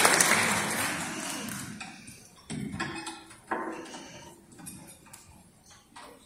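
Audience applause dying away over the first two seconds, then scattered small clicks and knocks with a few brief faint notes from the musicians' instruments.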